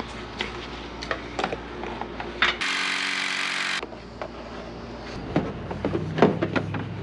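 Scattered clicks and knocks of tools and parts in a car's engine bay while 10mm bolts come out, with a small power tool whirring steadily for about a second near the middle.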